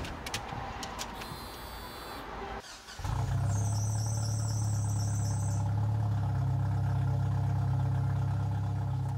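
A few clicks and knocks, then about three seconds in a Jeep Cherokee XJ's engine catches and settles into a steady idle. A high whine sounds for about two seconds just after it starts.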